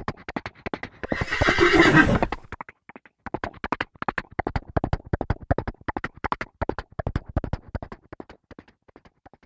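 A horse neighs loudly about a second in, over fast galloping hoofbeats; the hoofbeats pause briefly, start again and fade away near the end, as the horses gallop off.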